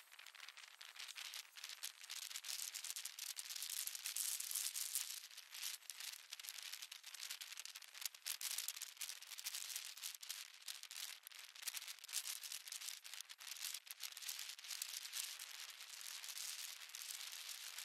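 Wind rushing over the microphone at riding speed: a faint, crackling hiss with no low end, swelling and easing.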